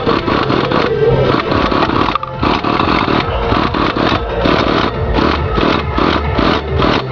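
Simson S50 moped's 50 cc two-stroke single-cylinder engine running, pulsing regularly about three times a second from a couple of seconds in.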